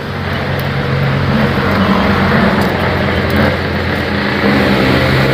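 A motor vehicle's engine running steadily with a low, even hum, growing a little louder about a second in.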